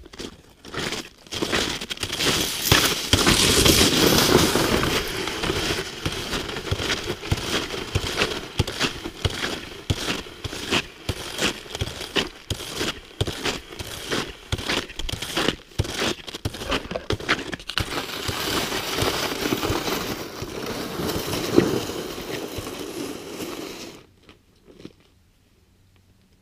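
Crunching and scraping on packed snow, close to the microphone, in a rough pace of about two to three crunches a second as it moves along a snowy trail. It stops abruptly about two seconds before the end, leaving near silence.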